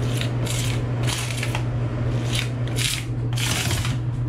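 A small hand tool scraping grout into the joints of a mosaic tile backsplash, in a series of short scraping strokes about one or two a second, over a steady low hum.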